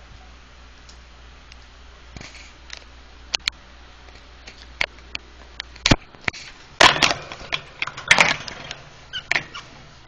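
Scattered sharp clicks and taps at a wire birdcage holding budgies. About seven and eight seconds in come two louder bursts of rattling and rustling.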